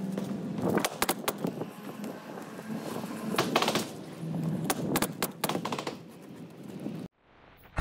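Pneumatic roofing nailer shooting nails into asphalt shingles in quick runs of shots, with shingles scraping and rustling between them. The sound cuts off suddenly near the end.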